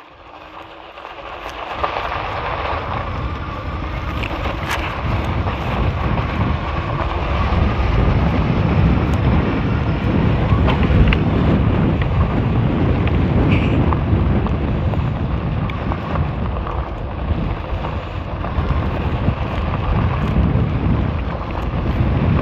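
Wind rushing over the helmet-camera microphone of a moving fat-tire e-bike, with a low rumble. It builds up over the first couple of seconds, then holds steady.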